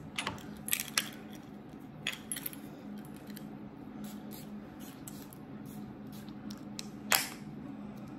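Scattered light clicks and taps of small objects being handled, with a louder one about seven seconds in, over a faint steady hum.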